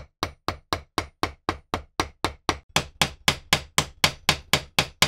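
Small ball-peen hammer tapping steadily on a metal pin in a wooden saw handle, peening its head over to rivet the handle in place. About four sharp taps a second, a little louder from about halfway.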